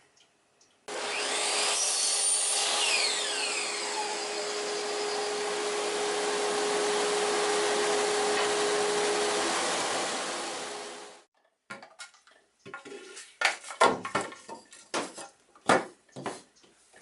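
An electric power tool motor running steadily for about ten seconds, then winding down and stopping, followed by a string of irregular knocks.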